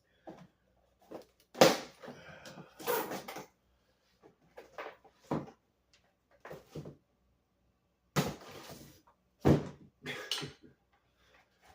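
Scooter packaging and parts being handled: a series of irregular knocks, thuds and short rustling scrapes, the loudest coming about a second and a half in, around three seconds in, and twice near the end.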